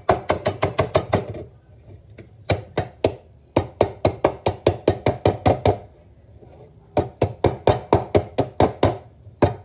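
A kitchen strainer of noodles being rapped hard and fast against a plate to shake the water out: about six loud knocks a second, in three runs with short pauses between them.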